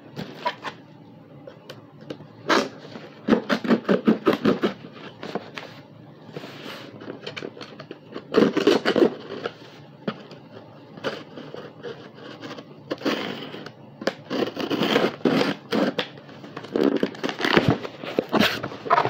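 Cardboard shipping box being opened and the packaging inside handled: irregular clusters of rustling and scraping noises with short pauses between them.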